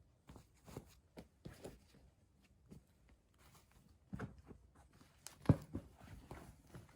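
Scattered handling sounds: short rustles and light knocks, with one sharper, louder knock about five and a half seconds in.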